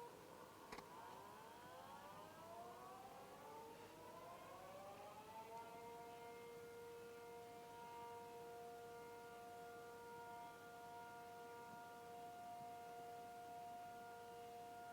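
Faint outdoor tornado warning siren winding back up: its tones glide upward over about five seconds, then settle into a steady multi-tone chord. There is a single sharp click near the start.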